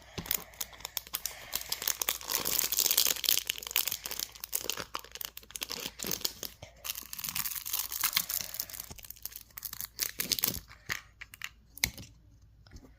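Wrapping being torn and crinkled off a surprise ball: dense crackling and ripping, loudest a few seconds in, thinning out near the end.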